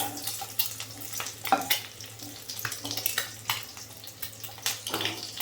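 Boiled eggs frying in hot oil in a pan, sizzling with irregular crackles and pops, over a steady low hum.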